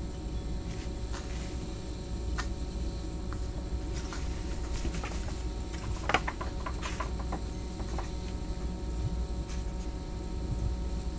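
Faint scattered clicks and crackles from an ice-packed glass bottle of water boiling under reduced pressure, with a cluster of sharper ticks about six seconds in. A steady low hum runs underneath.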